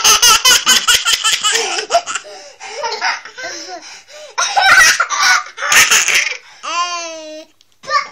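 Toddler laughing: a quick run of laughs in the first two seconds, then shorter bursts of laughter, and a drawn-out voice sound near the end.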